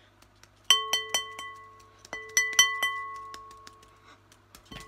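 Glass mixing bowl struck several times in two quick runs, about a second and two seconds in, each strike clinking and ringing on in a clear glassy tone that slowly fades. A dull knock near the end.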